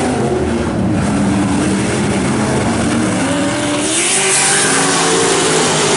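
Several dirt-track race trucks' engines running as the pack passes, pitches rising as they pick up speed from about three seconds in, with a burst of hiss about four seconds in.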